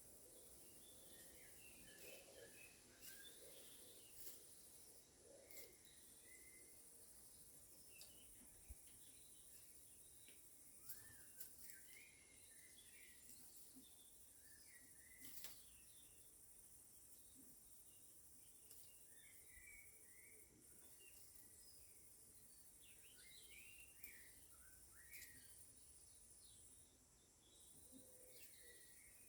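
Faint birdsong: scattered short chirps and calls from small birds, over a steady high hiss.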